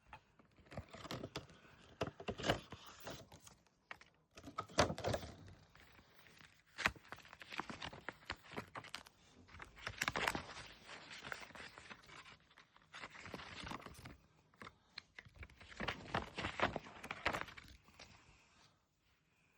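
Unboxing handling noise: packaging rustling with scattered clicks and knocks as a kendama is taken out and handled, in irregular bursts.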